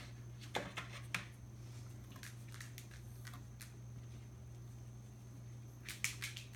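A kitten scrabbling in a cardboard box: short, scratchy rustles of paws on cardboard, a few about half a second to a second in, more a couple of seconds later, and the loudest cluster near the end. A steady low hum runs underneath.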